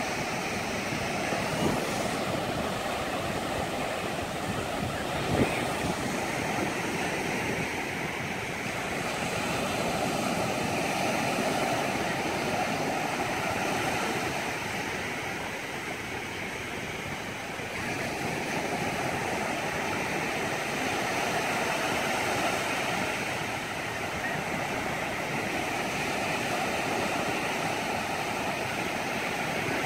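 Small waves breaking and washing up on a sandy beach: a steady rush of surf that swells and eases every few seconds. A single brief thump sounds about five seconds in.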